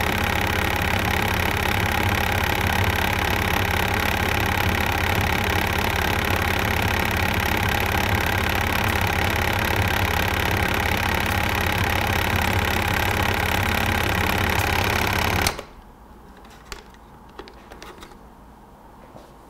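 Waterpik WP-100 Ultra water flosser's pump running, a steady mechanical buzz with a strong low hum. It is switched off abruptly about three-quarters of the way through, leaving a few faint clicks.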